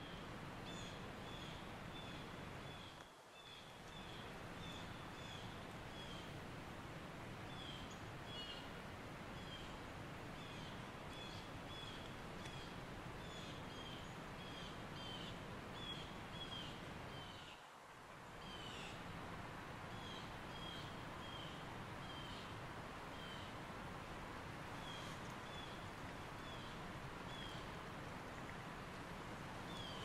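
Waterfall pouring steadily over a stone weir into a pool, a constant rush of water, with a small bird repeating short high chirps over it throughout. The rush drops out briefly twice, about three seconds in and again near eighteen seconds.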